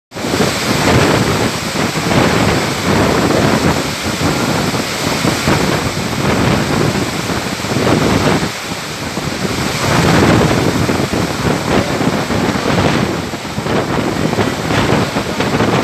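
Storm wind gusting hard over the microphone with heavy rain, rising and falling in gusts and easing briefly twice.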